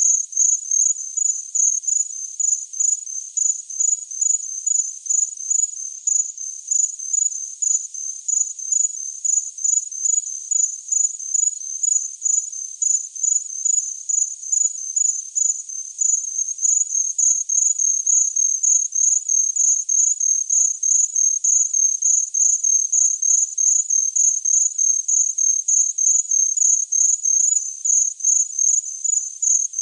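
A cricket chirping: short, high-pitched chirps repeating evenly, two or three a second, without a break.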